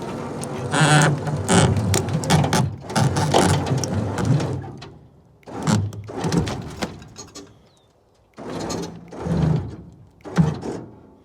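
Heavy scrap truck deck and axle being winched over logs onto a trailer: a dense run of metal clanking, creaking and ratcheting over a steady hum, then several separate scrapes and clunks.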